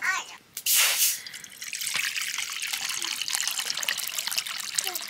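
Water running and trickling steadily, with fine splashy ticks, after a brief louder rush just under a second in.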